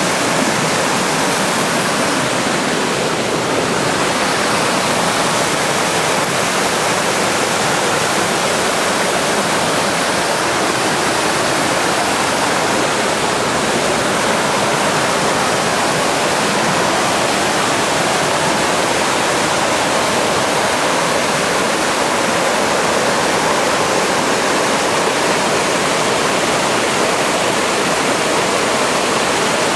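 Forest stream rushing over rocks in small cascades: a loud, steady rush of white water.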